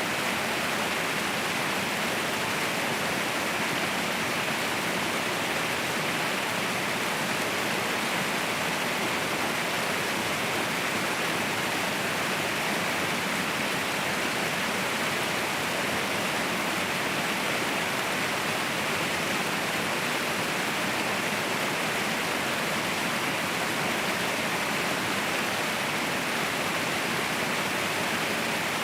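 Waterfall rushing with a steady, even roar of falling water, without any change.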